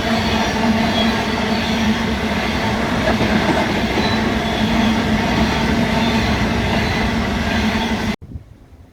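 Diesel train passing close by: a loud, steady rumble of engine drone and wheel and rail noise, which cuts off abruptly near the end.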